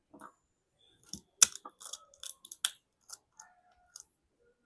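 Irregular sharp clicks and crackles of small tools and plastic being handled on an opened smartphone, the loudest click about a second and a half in and another just before three seconds.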